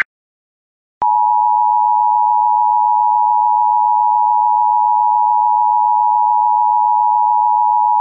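Emergency Alert System attention signal: a steady, loud electronic alarm tone just under 1 kHz. It starts about a second in after a brief silence and announces the flash flood warning that is about to be read.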